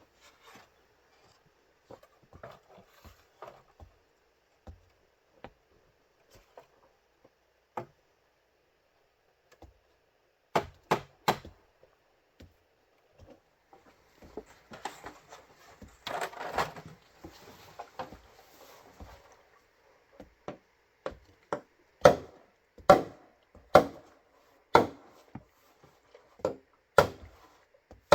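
Bamboo being struck with a hand tool: sharp wooden blows, three in quick succession about ten seconds in, then a stretch of scraping and rubbing, then a run of heavier blows about one a second near the end.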